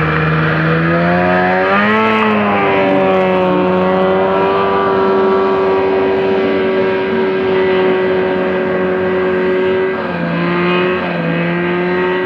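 Engine of a six-wheeled amphibious ATV running hard at high revs as it drives through mud. The pitch swells briefly about two seconds in, holds steady, dips near the end, then picks up again.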